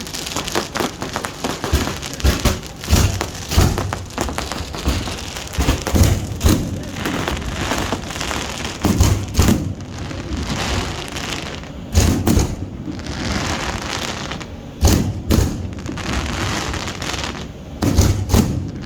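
Fireworks display: aerial shells bursting in an irregular series of sharp bangs, some with a deep thump, over a continuous crackling hiss. Bursts come in clusters, with the heaviest run about twelve seconds in and another near the end.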